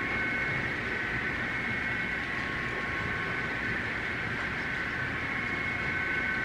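Model railroad freight cars rolling steadily along the track: a continuous rolling rumble of small wheels on rail, with a steady high whine over it.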